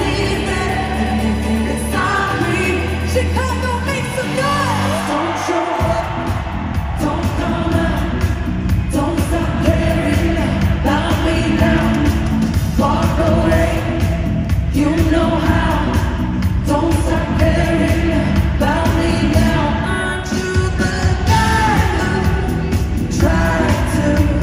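Live pop music from an arena concert: a female lead singer over a live band with a dance beat. The first few seconds carry a sustained bass line, and a full, driving beat comes in about six seconds in.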